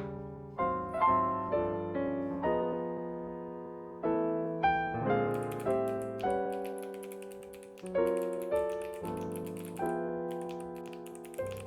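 Gentle piano music with notes that strike and fade away, and from about five seconds in, the quick clicking of someone typing steadily on a computer keyboard, with a short pause near the end.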